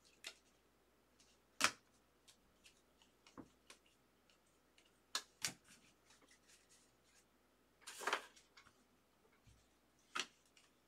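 Trading cards and a plastic toploader handled on a table: a few scattered soft clicks and taps, with a short rustle of cards about eight seconds in.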